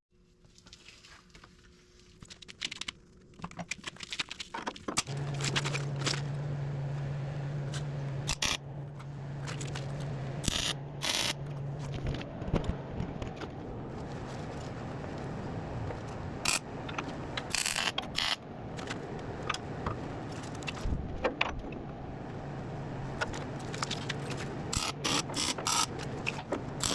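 A welder being set up for work: metal clinks, rattles and scrapes of gear being handled. About five seconds in, a steady low electrical hum starts as the welder is switched on, and more clinks and scrapes continue over it.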